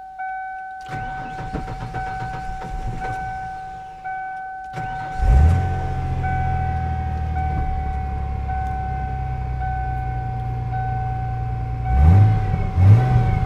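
1996 Ford F-150 being started after a fuel filter change: the starter cranks for about three seconds, cranks again, and the engine catches about five seconds in, then idles steadily and is revved twice near the end. A dashboard warning chime beeps steadily throughout.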